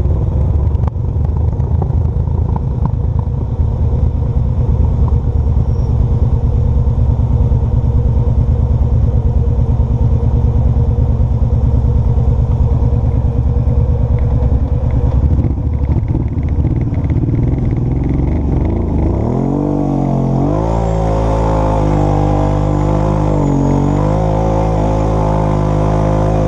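ATV engine running under the camera, a dense low rumble at steady throttle. About three-quarters of the way in it revs up, its pitch rising, dipping briefly and climbing again as the machine heads uphill.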